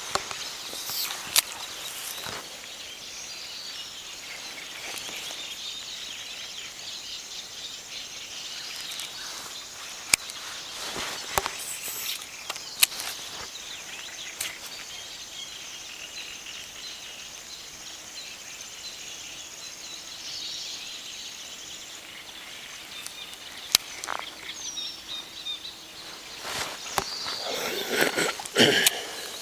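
Natural outdoor ambience: a steady high-pitched chorus of birds and insects. Scattered clicks and knocks from the phone being handled interrupt it, and there is louder rubbing and knocking near the end.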